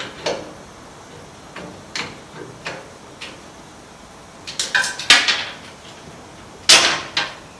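Irregular knocks and clatter of tools and parts being handled during a motorcycle strip-down, with a quick cluster about five seconds in and the loudest knock shortly before the end.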